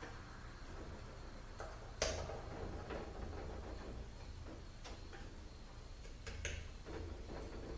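Scattered light metallic clicks and clinks of transmission parts, bolts and hand tools being handled, with one sharper click about two seconds in.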